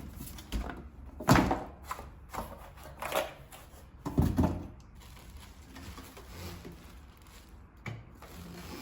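Plastic knocks and clatters of a new bagless vacuum cleaner being handled and fitted together, a few sharp bumps in the first half, then quieter fiddling. The motor is not running.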